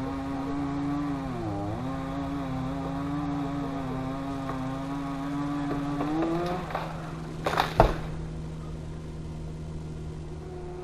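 Chainsaw running at high speed, bogging down briefly and then revving up. About seven and a half seconds in there is a loud burst of cracking that ends in a heavy thump, and the saw drops out before starting again at a higher pitch near the end.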